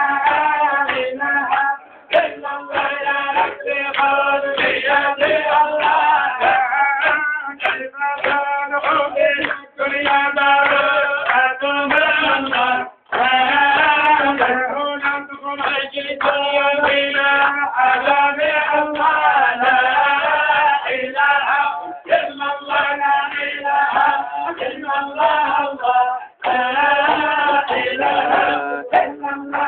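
A group of men singing together, with a held low note under the melody and rhythmic hand-clapping that keeps the beat.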